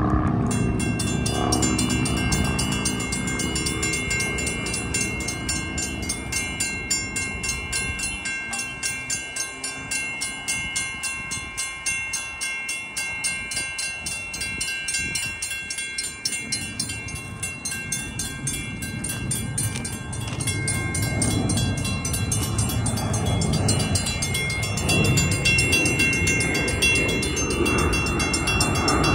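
Railroad crossing signal bells ringing in rapid, even strokes as the crossing signals are activated, over a low rumble that fades in the middle and comes back near the end.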